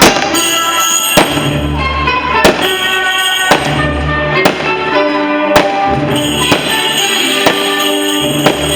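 Show soundtrack music with held bass notes and melody, and a sharp percussive hit about once a second.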